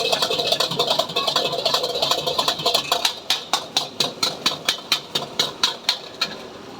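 Metal spatula clacking against a wok as fried rice is stirred and tossed, over a steady hiss of frying. The strikes come about four or five a second, stand out more clearly in the second half, and stop near the end.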